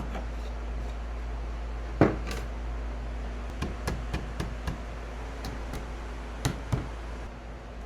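Wooden cabinet pieces being handled and set down: one sharp knock about two seconds in, scattered light clicks, and two more knocks near the end. A steady low hum runs underneath.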